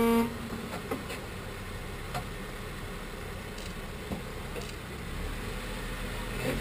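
Jeep Wrangler JK's engine. A loud steady high-revving whine cuts off just after the start, then the engine runs low under a few scattered clicks and knocks from the tyres on the rock. A low engine rumble builds near the end.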